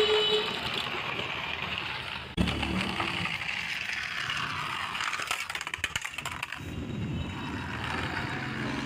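Toy remote-control car running, a steady rolling whir with a sudden change about two and a half seconds in and a run of clicks near the middle.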